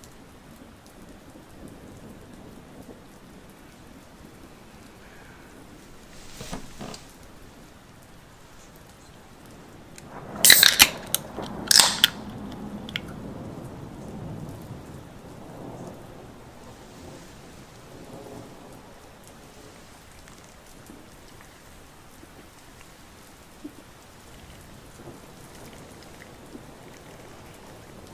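Steady rain with low thunder rumbling. Two loud, sharp cracks come about ten and twelve seconds in, with a smaller one a few seconds before them.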